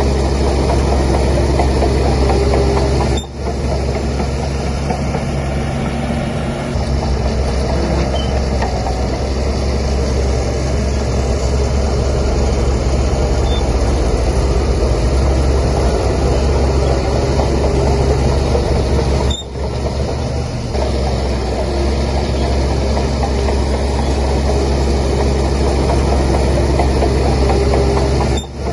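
Heavy diesel engine of a Shantui DH17C3 bulldozer running steadily under load, a low continuous rumble. It dips briefly three times: about three seconds in, about nineteen seconds in and near the end.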